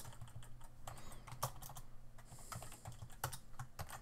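Computer keyboard typing: quick, irregular keystrokes as text is typed into a terminal editor.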